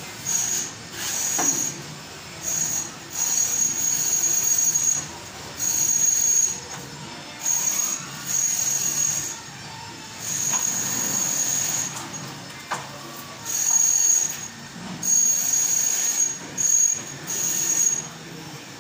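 Plasterer's trowel scraping across a gypsum plaster wall with a high, squeal-like scrape on each pass. There are about a dozen strokes, from half a second to about two seconds long, with short pauses between them.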